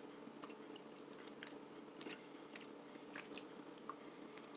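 Faint chewing of a mouthful of dry teriyaki beef biltong, heard as soft, scattered clicks over a steady low hum.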